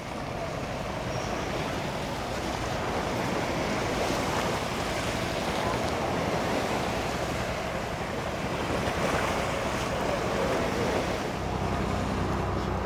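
Steady drone of a DHC-6-200 Twin Otter floatplane's twin PT6A turboprops as it taxis on the water, over a steady rush of wind and harbour water. The low engine hum grows stronger about eleven seconds in as the plane comes closer.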